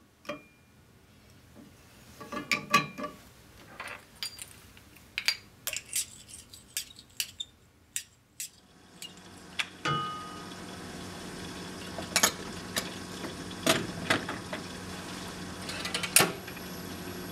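Metal stirrer clinking and scraping inside a glass Falling Number test tube, a run of sharp clinks and taps. About eight seconds in a steady machine hum starts, with a few louder knocks over it.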